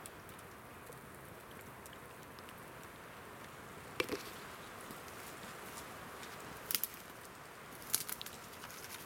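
Campfire burning, a faint steady hiss and crackle of the flames with a few sharp pops of the wood, about halfway through and twice near the end.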